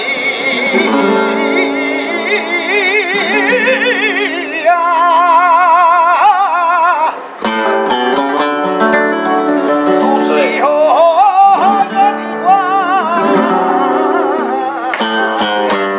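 Male flamenco singer (cantaor) singing fandangos in long, wavering, ornamented phrases, accompanied by a flamenco guitar. Sharp guitar strums come in about halfway through and again near the end.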